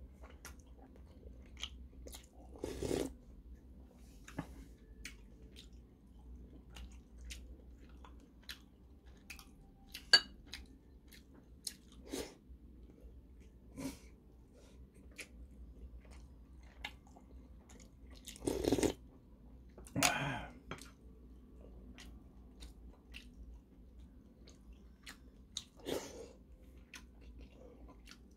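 A person eating kimchi stew and rice with a metal spoon: soft chewing and mouth noises throughout, with many light clicks, one sharp click about ten seconds in, and a few louder short mouth noises near three seconds, twice around nineteen to twenty seconds, and near twenty-six seconds.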